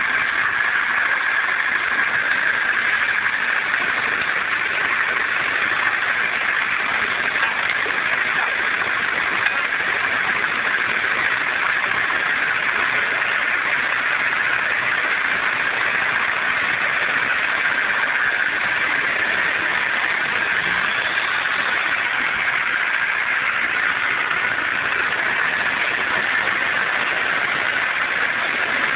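Car engine running steadily as the car drives up a hill, heard through a phone's microphone.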